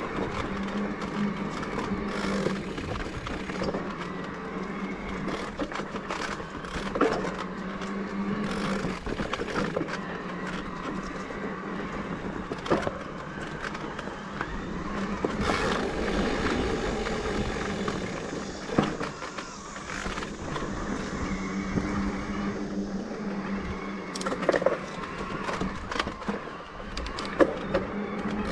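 Electric mountain bike with a Bosch drive unit ridden along a dirt singletrack. The motor gives a steady hum over the rolling of the tyres, with a few sharp knocks and rattles as the bike goes over bumps.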